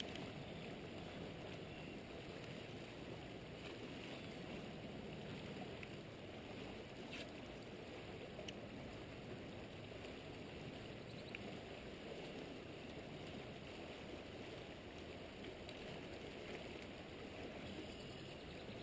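Steady rushing of a river flowing, with a few faint clicks over it.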